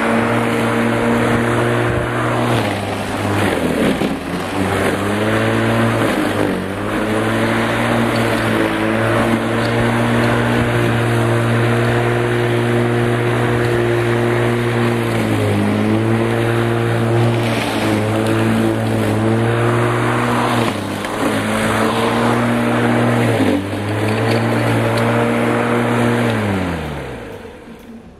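Bosch Rotak 34R corded electric rotary mower's 1300 W motor running and cutting grass, its pitch dipping briefly several times as it cuts. Near the end the motor is switched off and winds down, its pitch falling away.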